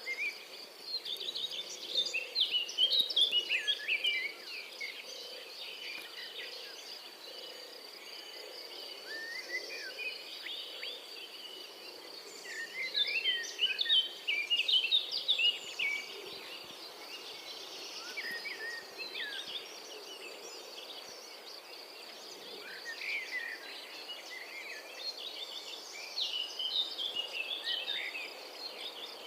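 Birds singing in quick twittering phrases that come in bouts every few seconds, over a steady high-pitched insect drone.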